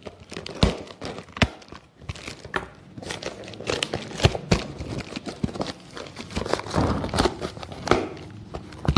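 A taped cardboard shipping box being handled and opened by hand: crinkling and tearing of cardboard, with many irregular knocks and scrapes.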